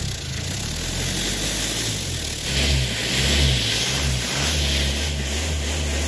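Car engine running, heard at the tailpipe through an aluminium drink can wired over its end as a homemade exhaust tip meant to change the exhaust note. A low, throbbing exhaust note that rises in a brief rev about two and a half seconds in.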